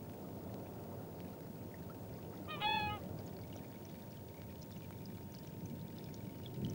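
Steady low rush of wind-ruffled lake water, with one short pitched call from a waterbird about two and a half seconds in.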